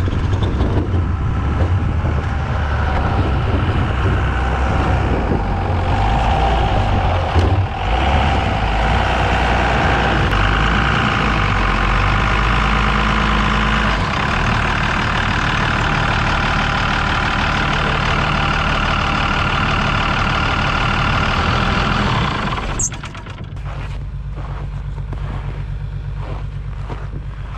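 Pickup truck engine running steadily as the truck is loaded onto a flat-deck trailer. About 23 seconds in it drops away, leaving a quieter steady engine running.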